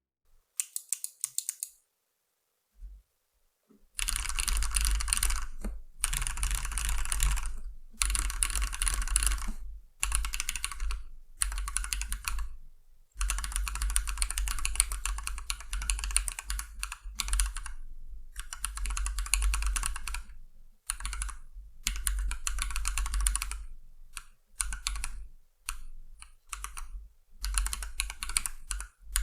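Typing on a 40% mechanical keyboard with lubed Feker 'holy panda' clone tactile switches, in a 3D-printed case with an aluminium plate. A few keystrokes near the start, then after a pause of a few seconds, fast typing in bursts broken by short pauses.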